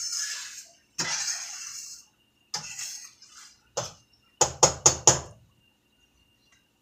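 Cookware and utensils handled at a stove: three short hissing, scraping bursts, then a quick run of four sharp knocks of metal about two-thirds of the way in.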